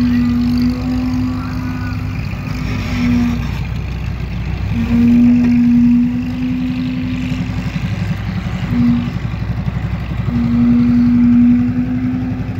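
Small pulling tractor's engine running under load while hitched to a pulling sled, its note swelling to a strong steady pitch and dropping back several times.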